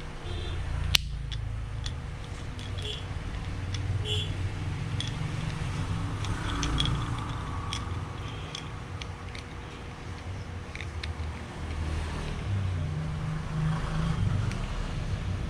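Small plastic clicks and rattles from a phone holder bracket being handled and fitted together, with one sharp click about a second in, over a steady low rumble.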